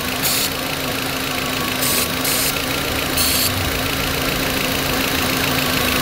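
A 2004 VW Beetle's 1.8-litre turbo four-cylinder idling steadily, with four short hisses of aerosol carburetor cleaner sprayed over the vacuum fittings, the last about three and a half seconds in. The spray is a test for a vacuum leak, and the engine has one, at the brake booster line, which the owner blames for its rough idle.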